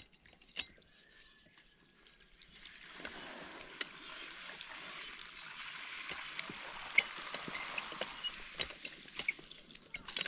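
Water running out of a pipe, starting about three seconds in and tapering off near the end, with scattered small knocks and clicks.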